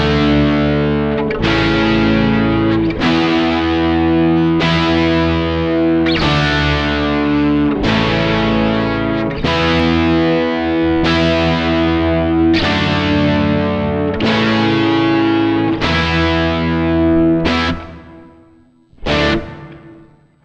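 Music: distorted electric guitar chords, each struck and left to ring, about every one and a half seconds. The playing fades out near the end, with one last short chord.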